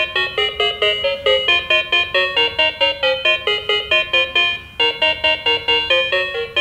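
Battery-powered toy police car playing a quick electronic tune through its small speaker: short, bright beeping notes about five a second, with a brief break a little past the middle.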